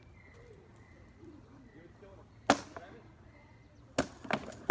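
Rattan sword blows in SCA heavy-armour sparring: one sharp crack about halfway through, then a quick flurry of cracks in the last second as an exchange of strikes begins.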